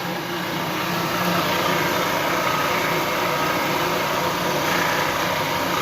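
Milling machine running steadily with an even hum and whir, sounding smooth: it "purrs like a kitten".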